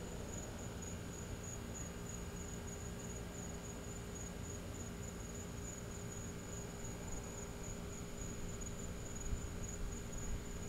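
An insect trilling steadily at one high, even pitch, over a low steady hum, with a few faint knocks near the end.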